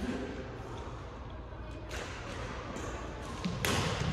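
Badminton rackets striking the shuttlecock in a rally: a sharp crack about two seconds in and another, louder one near the end, with a low thud just before it.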